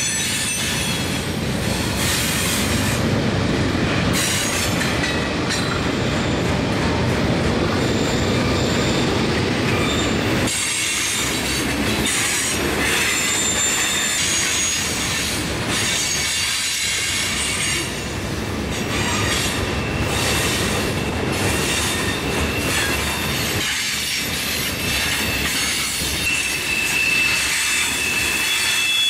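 Loaded Herzog rock hopper cars rolling past on curved track: a continuous rumble and clatter of steel wheels on rail. High-pitched wheel squeals come and go over it and grow stronger near the end.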